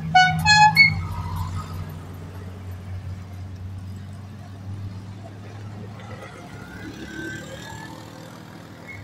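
A car horn beeps twice in quick succession, the second note a little higher, over the steady low hum of car engines driving slowly past.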